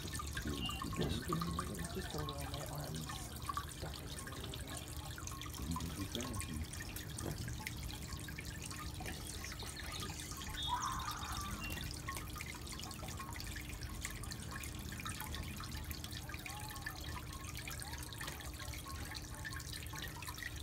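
Water trickling and dripping in a stone garden fountain, falling into its basin in a steady patter.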